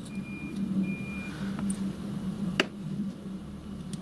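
Small steel parts and bolts being handled by hand on a workbench: faint taps and one sharp click about two and a half seconds in, over a steady low hum, with a faint high whine in short stretches during the first second or so.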